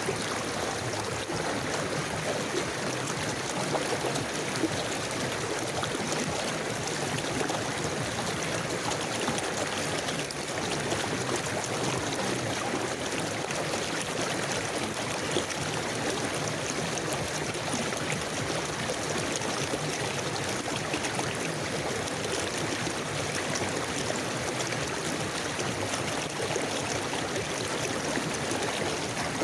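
Forest river flowing steadily, a constant rushing and gurgling of water over the streambed.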